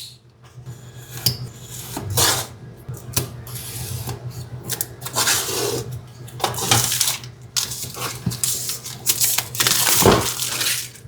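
A phone's retail box being handled and opened: irregular scraping, sliding and rubbing of cardboard and packaging, with a few light knocks, the longest and loudest rubs about five and ten seconds in.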